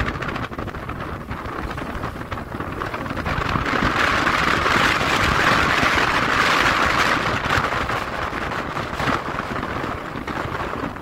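Strong wind buffeting the microphone with a low rumble, over the rushing hiss of wind and choppy water on a pond; the rush swells about four seconds in and eases near the end.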